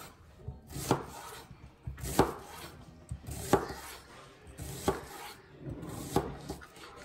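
Large kitchen knife slicing through an onion and knocking on a wooden cutting board: five evenly paced cuts, about one every second and a quarter, with a soft scrape of the blade between them.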